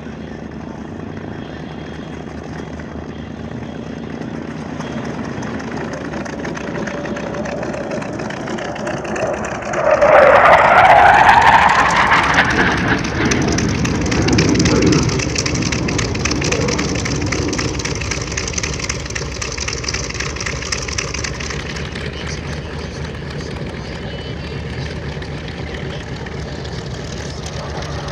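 Jet noise from a TA-4J Skyhawk's Pratt & Whitney J52 turbojet in flight. It swells gradually, grows sharply louder about ten seconds in with a whine that rises in pitch, then settles into a steady rush.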